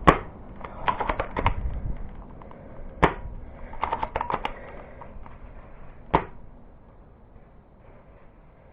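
Airsoft gunfire: three sharp single shots about three seconds apart, with quick rattling runs of fainter shots or hits in between.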